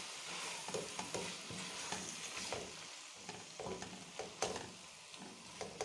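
Mutton liver and chopped tomatoes sizzling in oil in a pan while a spatula stirs them, with irregular light scrapes of the spatula against the pan.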